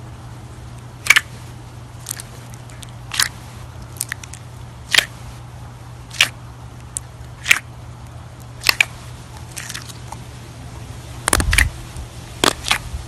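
Clear glitter slime being worked by hand, giving sharp pops and clicks about once a second. A busier run of louder pops comes near the end, over a steady low hum.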